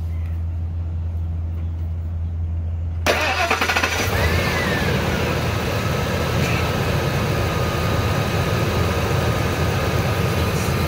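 A truck engine is started: a steady low hum for about three seconds, then the starter cranks and the engine catches about a second later and settles into an idle. A whine comes in as it catches, drops in pitch and then holds steady.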